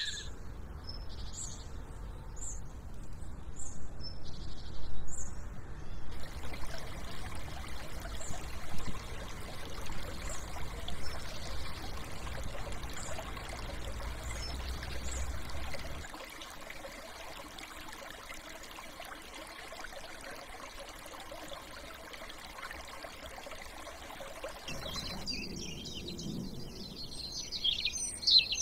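Outdoor ambience of running water with scattered short bird calls. Near the end, a burst of rapid bird chirping comes in.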